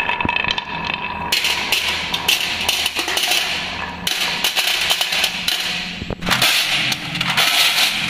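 Marbles rolling down wooden marble-run tracks and dropping into a metal tin: a dense, continuous rattle of clicks and clacks as they knock against the wood and each other.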